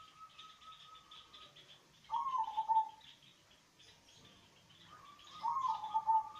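Local zebra dove (perkutut) cooing: two short phrases of low coo notes, the first about two seconds in and the second from about five seconds in. Faint high chirping continues behind them.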